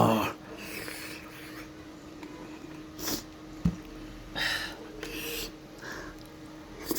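Close-up eating noises while taking hot momos: short breathy puffs and sniffs through mouth and nose, with a single sharp click about three and a half seconds in, over a steady low hum.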